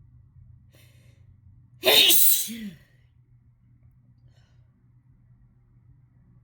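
A person sneezes once, harshly, about two seconds in, lasting about a second. It is one sneeze in a fit induced by chhinkni, a herbal sneezing snuff.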